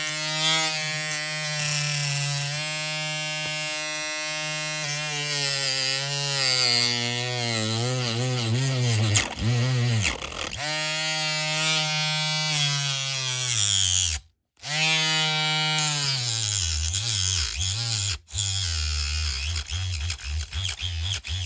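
Small handheld electric rotary tool running at high speed and cutting into a diecast metal car body. Its whine sags in pitch each time it bites into the metal. It stops for a moment about 14 seconds in and restarts, and near the end it stutters on and off.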